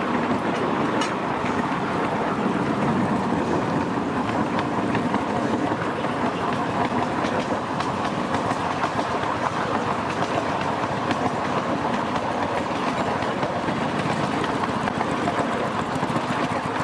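Miniature steam locomotive and its riding car running steadily along a ground-level track, heard from on board just behind the engine.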